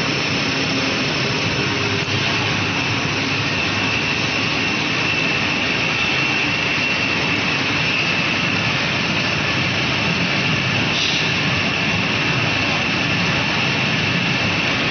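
Brewery spent grain dryer running: a steady, even machine noise with a constant high-pitched whine over it.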